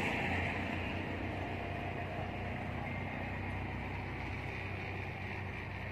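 Steady low engine rumble with a hiss over it, slowly fading.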